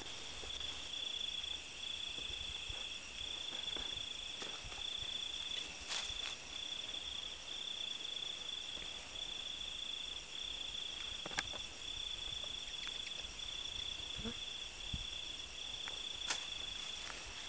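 Crickets trilling in a steady high pulsing tone. A few sharp clicks come about six, eleven and sixteen seconds in.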